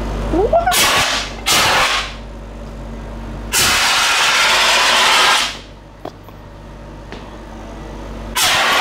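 Handheld CO2 fire extinguisher discharging in hissing blasts to put out a fire in a laser cutter's bed: two short blasts about a second in, a longer one of about two seconds near the middle, and another beginning near the end. A steady low hum runs beneath the blasts.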